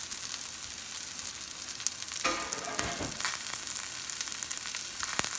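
Breaded pork cutlets shallow-frying in oil in a stainless steel skillet: a steady sizzle with scattered small pops and crackles.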